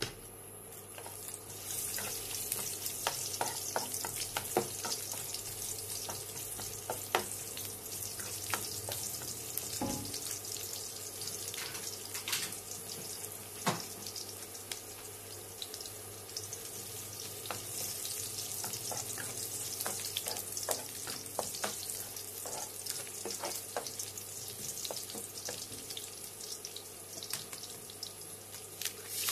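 Sliced garlic sizzling and crackling in hot oil in a stainless steel wok, with the frying swelling up about a second in. A nylon spatula stirs the garlic, with scattered clicks and scrapes against the pan.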